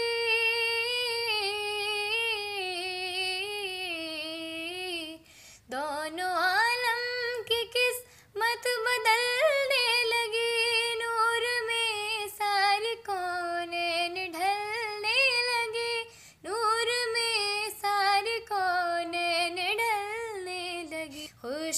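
A teenage girl singing a naat solo, with no accompaniment, in long held notes that waver and slide through ornamented turns, pausing briefly for breath three times.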